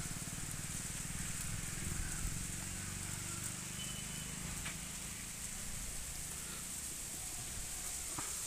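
Wind buffeting the microphone, with a steady high drone of insects in the background.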